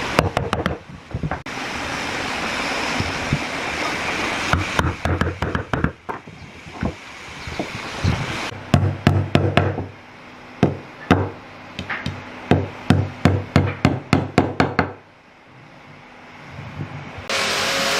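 Hammer knocking a tenoned wooden piece into the drilled hole of a round wooden leg: runs of sharp knocks, a quick flurry and then steadier blows about two a second. Near the end a steady machine noise starts.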